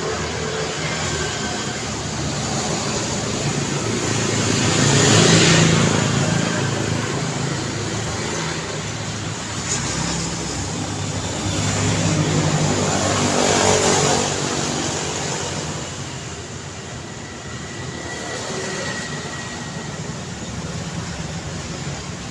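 Road traffic: a steady wash of tyre and engine noise, with two vehicles passing close by, about 5 and 14 seconds in.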